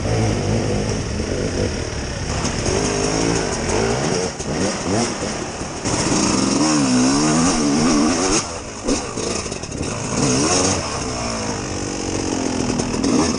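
Off-road vehicle engine revving hard under load, its pitch rising and falling again and again, typical of a trail climb over slippery rock.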